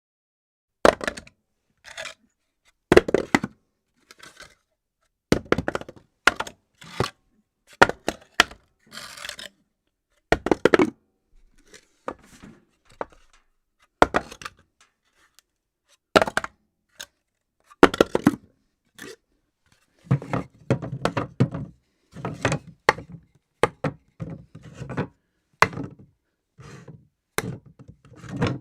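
Objects dropped one after another onto a floor: a series of separate thuds and knocks at irregular intervals, many followed by a few smaller bouncing or clattering hits as they settle. The drops come closer together near the end.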